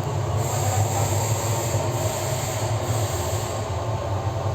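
Gas burner firing into a melting furnace: a steady roar with a strong low rumble.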